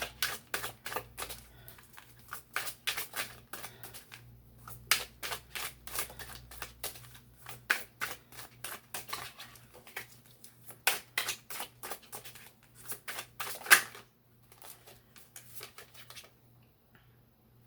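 A deck of oracle cards being shuffled by hand: a long run of quick, irregular snapping and flicking that thins out after about fourteen seconds into a few faint taps.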